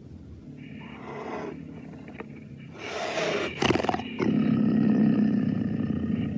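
Cougar vocalising: short breathy hisses, then from about four seconds in a long, loud, low growl.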